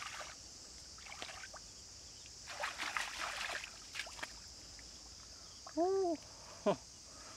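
Hands splashing and squelching in shallow muddy water, groping for fish in a series of short bursts, over a steady high hiss. About six seconds in comes a short pitched voice-like sound, then a quick falling one.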